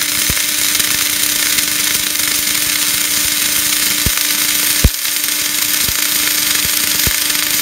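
MIG welding arc running a fillet bead on a steel T-joint: a steady harsh crackle with a faint hum under it and a few sharp pops, the loudest about five seconds in.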